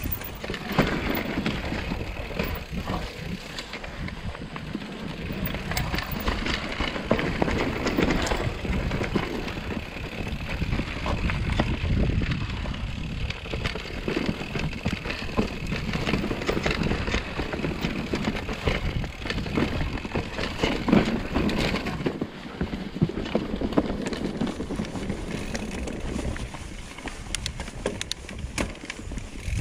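Mountain bike descending a dirt singletrack: tyres rolling and crunching over dirt, roots and rocks, with irregular knocks and rattles from the bike.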